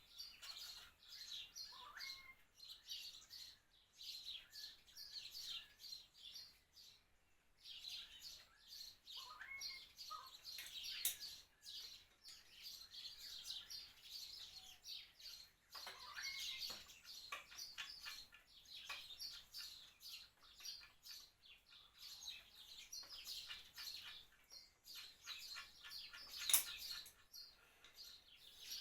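Birds chirping and twittering steadily, faint, with a few sharp clicks standing out, the loudest about 11 s and 26 s in.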